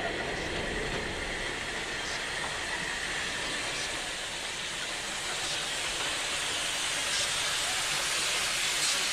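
A train running on rails: a steady rushing hiss with faint clicks every couple of seconds, growing slightly louder toward the end.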